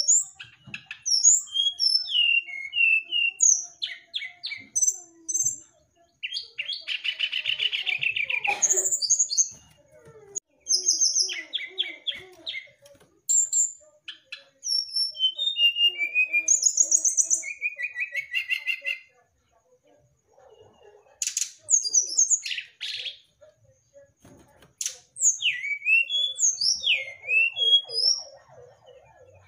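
Songbird singing a varied, rapid song of quick down-slurred whistles and chirps mixed with buzzy rattling trills, broken by short pauses.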